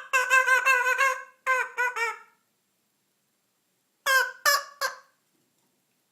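African grey parrot giving a quick run of short pitched calls for about two seconds, then, after a pause, three more calls about four seconds in.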